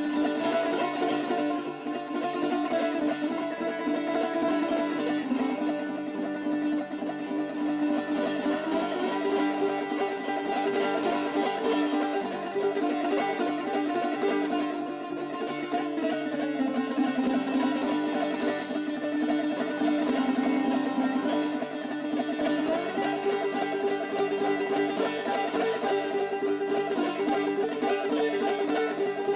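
A handmade Shurangiz, a Persian plucked lute, played solo in a free improvisation: a steady stream of quickly plucked notes ringing over sustained lower pitches.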